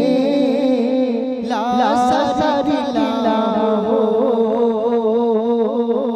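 A man's solo voice singing an unaccompanied Islamic gojol into a microphone, holding long notes with wavering ornaments and gliding runs between pitches.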